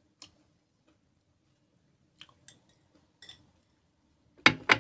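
A spoon clicking lightly against a ceramic bowl a few times as food is served out of it, then a loud double knock of dishware on the table near the end.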